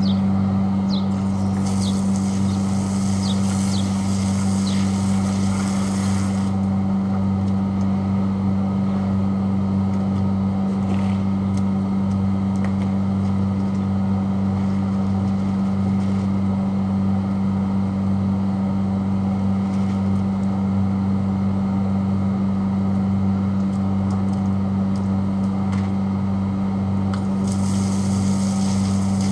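Steady low machine hum, with water from a garden hose splashing onto a concrete roof for the first few seconds and again near the end.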